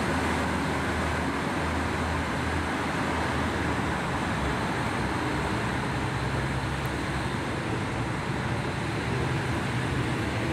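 KiHa 40 diesel railcar pulling away under power, its diesel engine running with a steady low hum whose pitch steps up a few seconds in.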